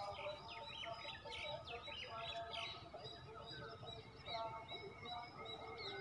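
Several birds chirping and calling at once, with many quick falling chirps crowded into the first three seconds and lower calls overlapping throughout.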